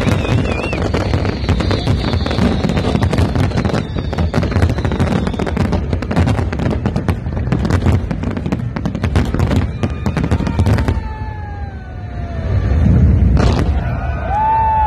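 Fireworks display: a dense barrage of crackling and banging shell bursts, which stops abruptly about eleven seconds in. Falling whistle-like tones follow, with a deep boom near the end.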